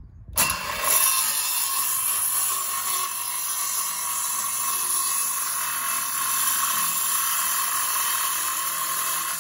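Corded DeWalt handheld circular saw cutting through a sheet of plywood. It starts about half a second in and runs at a steady pitch as the blade works along the cut.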